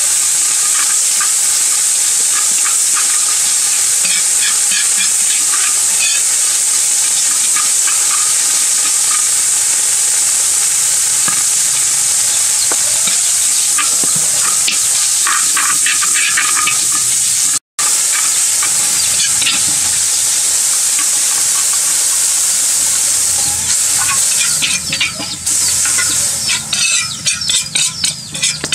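Curry paste sizzling in hot oil in a metal wok, with a metal ladle stirring and scraping the pan. Near the end, as liquid goes into the wok, the steady sizzle gives way to uneven stirring and scraping sounds; there is one very short break in the sound about two-thirds in.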